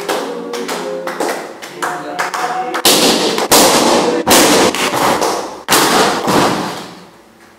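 Voices singing along with clapping, then four or five loud pops in quick succession, each with a short room echo, from balloons being burst.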